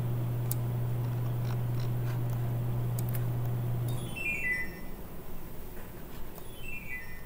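A steady low hum that cuts off about four seconds in, followed twice by a quick falling run of short, high beeping tones.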